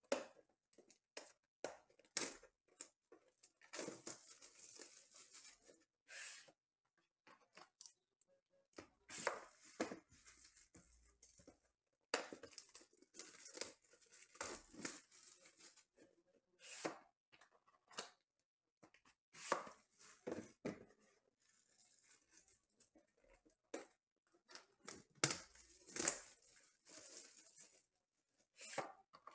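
Plastic shrink wrap being torn and peeled off a cardboard trading-card box, crinkling in short irregular spells with brief pauses between, along with light handling of the box.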